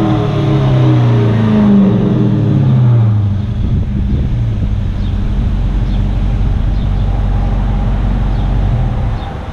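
Dodge Charger R/T V8 on an exhaust with Flowmaster Super 10 mufflers and no resonators: the revs fall back over the first few seconds, then it runs at a steady low idle, which drops in level near the end.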